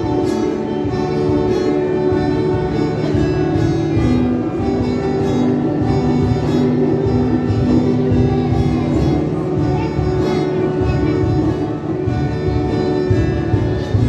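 Music with long held notes, accompanying a stage dance.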